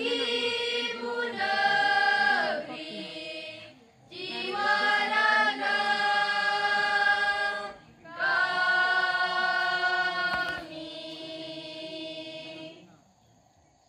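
School choir of boys and girls singing an Indonesian national song unaccompanied, in long held notes phrase by phrase with brief breaths between. The singing stops about a second before the end.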